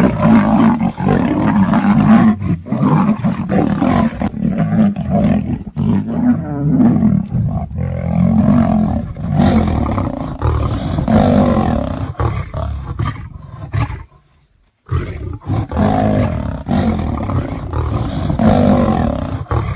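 Big cats roaring and growling in a fight, one loud call after another, with a short break about two-thirds of the way through.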